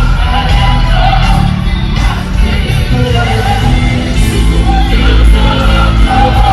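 Live gospel worship music: voices singing over a band with a strong, steady bass.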